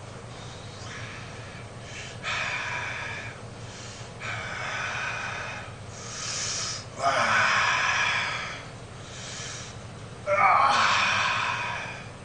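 A man breathing hard through dumbbell flies: five heavy breaths, each a second or two long, with a short pause between them. The two loudest come in the second half and carry a little voice.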